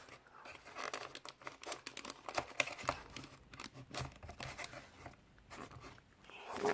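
Play-Doh packaging being worked open with difficulty: plastic crinkling and tearing in irregular crackles and clicks.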